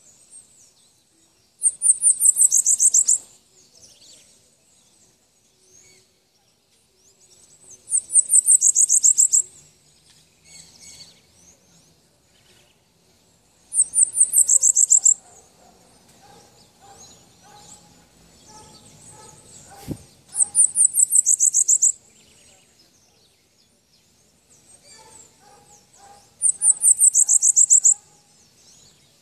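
A caged sibito peito branco songbird singing: five short, high, fast trilled phrases, each about a second and a half long and spaced about six seconds apart, with soft calls between them.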